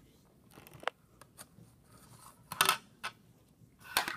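Dry-erase marker writing on a whiteboard: a series of short strokes and taps, with two longer, louder strokes about two and a half seconds in and near the end.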